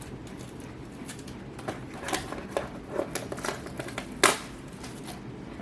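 Hands opening a Yu-Gi-Oh card box, its packaging giving scattered light clicks and rustles, with one sharper snap about four seconds in.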